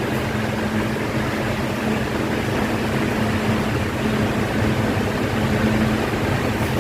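Electric fan running steadily: a whoosh of moving air over a low, even motor hum.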